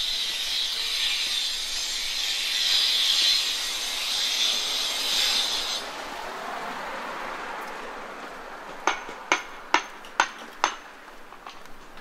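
A steady high hiss fades out about six seconds in. Near the end come five sharp, ringing hammer strikes, about two a second.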